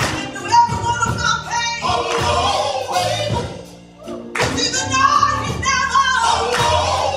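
A woman singing a gospel song into a microphone over a live band of drums and keyboard. The music drops away briefly about four seconds in, then comes back in full.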